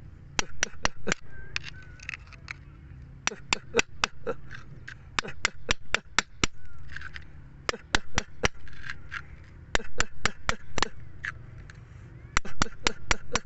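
Steel chisel tip tapping and picking at rock, a run of sharp clicks in quick bursts of several taps with short pauses between.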